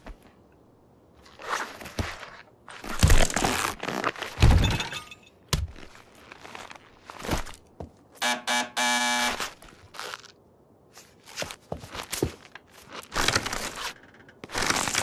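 Animated-film sound effects: a run of irregular thumps, knocks and scrapes, with a short pitched sound about eight seconds in.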